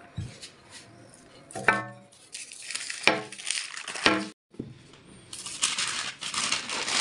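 Parchment paper rustling and crinkling as a round aluminium pie pan is set down on rolled-out pastry and handled, busy through the last couple of seconds. Earlier come three short squeaky pitched sounds a second or so apart.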